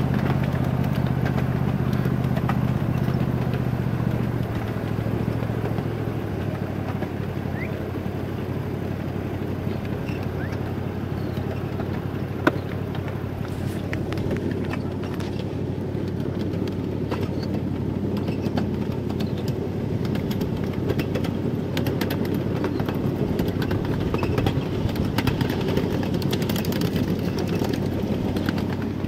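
Ride-on miniature railway train rolling along the track: a steady rumble with many small clicks from the wheels on the rails. A low engine hum fades away over the first several seconds, and there is one sharp knock about halfway through.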